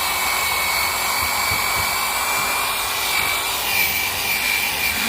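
Electric drill with a wire-brush attachment running at a steady speed, a constant high whine over a hiss, as it scours rust off a steel anchor.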